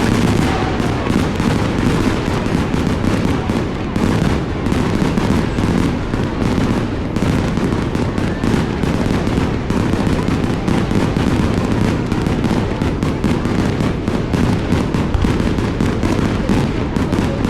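Fireworks going off in a dense, continuous barrage: many rapid bangs and crackles running together.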